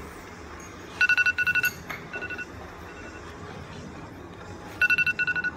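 Digital timer alarm beeping in quick groups of four, two steady tones at once, loud about a second in and again near the end with fainter groups between, sounding the end of the ten-minute challenge time.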